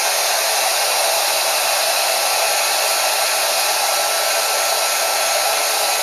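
Heat gun running steadily, blowing hot air to shrink heat-shrink tubing onto motor wire leads: a loud, even rush of air with a faint steady whine.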